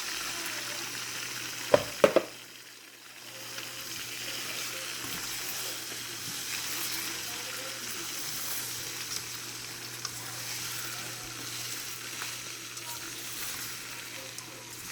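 Whole shrimp sizzling in a pot of hot melted butter and seasoning, a steady hiss. About two seconds in come two sharp knocks against the pot; the sizzle drops briefly, then builds back.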